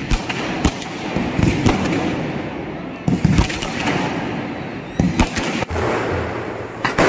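Aerial fireworks going off: a string of sharp bangs over continuous crackling.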